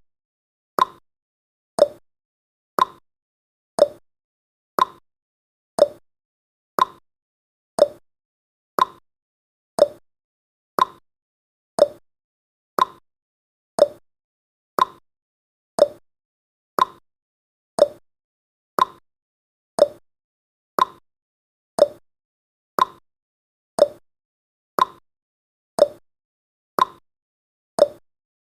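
Countdown timer ticking sound effect: one short, sharp tick each second, evenly spaced.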